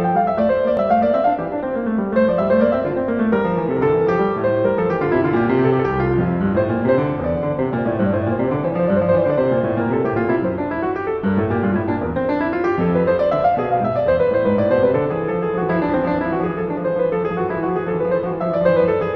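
Piano music, played in flowing runs of notes that rise and fall without a break.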